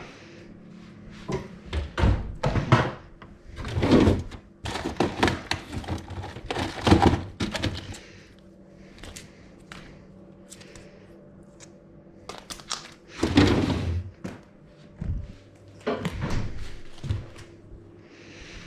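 Kitchen clatter: irregular thunks, knocks and clatters of things being handled and set down, several of them loud, over a faint steady hum.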